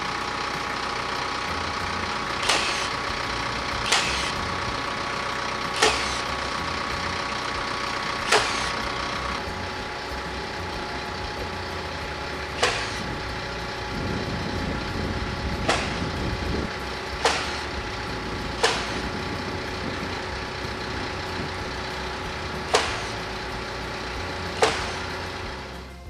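TYM T474 compact tractor's diesel engine idling steadily while about ten sharp single strikes ring out, one every few seconds: nails being driven into the roof slats of a timber shed.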